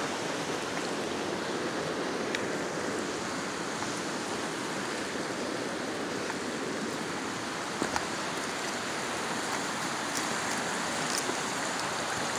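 Shallow creek flowing over stones, a steady rushing of water. A few light clicks come through near the end, about eight and ten seconds in.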